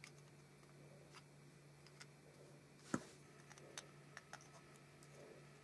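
Faint, scattered clicks of small plastic toy parts being handled and fitted together by hand, with one sharper click about three seconds in, over a low steady hum.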